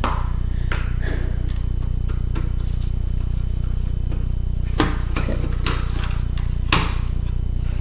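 Scattered light clicks and knocks of screwdriver and small metal parts being handled as a laptop is taken apart, the sharpest near the middle and near the end, over a steady low hum.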